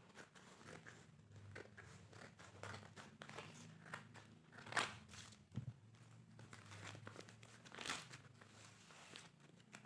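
A mailed book parcel being torn open by hand: crinkling and rustling of the wrapping, with two sharper rips about five and eight seconds in.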